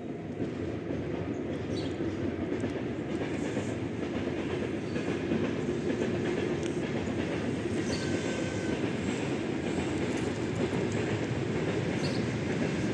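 Train running on rails, a steady low rumble growing slowly louder as it approaches.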